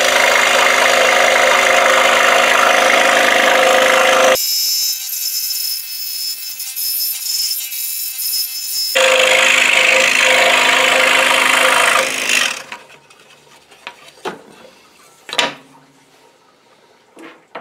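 Scroll saw running and cutting half-inch-thick wood, a steady buzzing. For several seconds in the middle the low part of the sound falls away and only a thinner, higher sound remains. The saw stops about twelve seconds in, followed by a few light knocks as the cut piece is handled.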